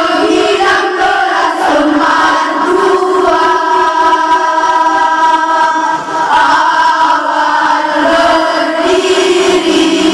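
A choir of young female students sings together in long, held notes, with a short break between phrases about six seconds in.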